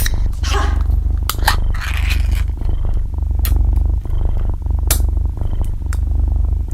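A cat purring loudly, close up, in long rhythmic stretches broken by short pauses for breath. A few sharp clicks and short scraping noises sound over it.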